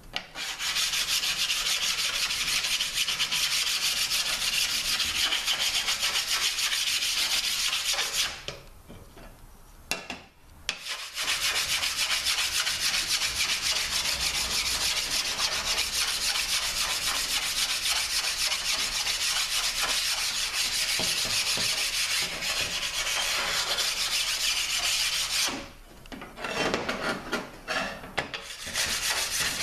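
A hand-held stone is rubbed rapidly back and forth across the machined face of an aluminium 5L40E transmission valve body, a steady rasping scrape as the surface is flat-sanded true. The scraping stops for a couple of seconds about eight seconds in and briefly again near the end, then comes back in shorter strokes.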